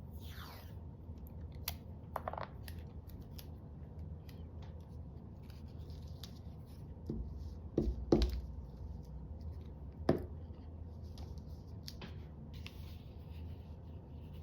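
Tabletop craft work: scissors snipping and tape being handled, a string of light clicks and rustles, with a few louder knocks around eight and ten seconds in.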